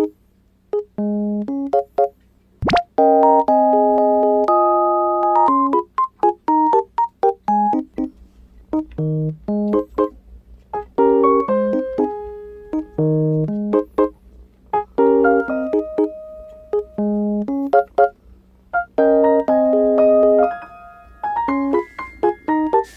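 Background piano music: a light tune of short notes and chords played in little phrases with brief pauses. A single sharp click comes about three seconds in.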